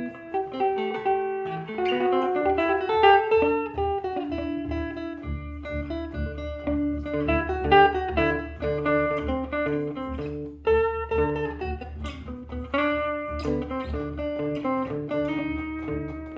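Improvised instrumental music on plucked strings: a guitar melody with some sliding notes, joined by a low bass line about five seconds in.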